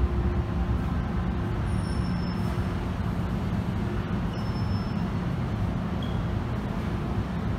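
MTR M-Train electric multiple unit moving along the platform, a steady low rumble of wheels and running gear heard through the platform screen doors.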